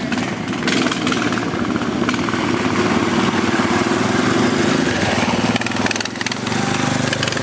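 Small single-cylinder engine of an off-road riding mower running close by, rough and loud. It picks up about a second in and drops back briefly near the end.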